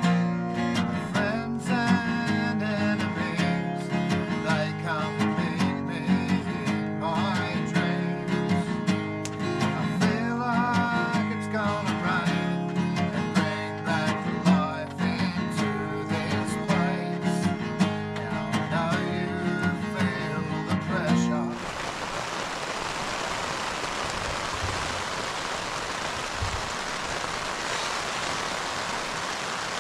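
Acoustic guitar song, strummed, with singing. About two-thirds of the way through it cuts off abruptly to a steady, even rushing noise.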